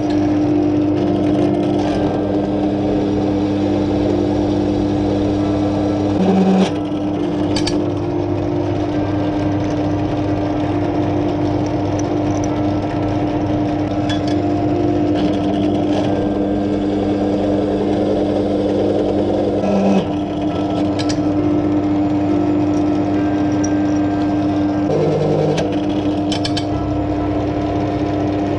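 Bench pillar drill running steadily while countersinking the drilled holes in metal hinge blanks, a constant motor hum. It briefly flares louder, with a shift in tone, about six and a half and twenty seconds in.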